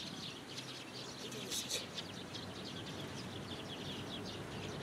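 Small birds chirping in quick, short calls throughout, over steady outdoor background noise, with two brief sharp sounds about one and a half seconds in.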